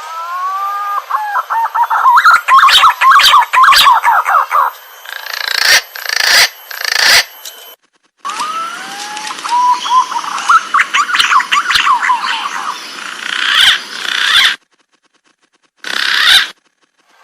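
Green pigeon (punai) calls: a few rising whistled notes that open into a rapid run of warbling, chattering notes, heard twice with a short fragment near the end. Each phrase cuts off abruptly, as in an edited, looped recording.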